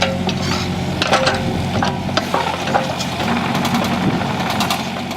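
Heavy machinery engine running steadily, with irregular knocks and clanks of concrete being broken up and moved during driveway demolition.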